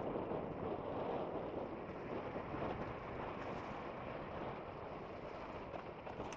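Steady rushing noise of a small boat out on the water, with wind on the microphone.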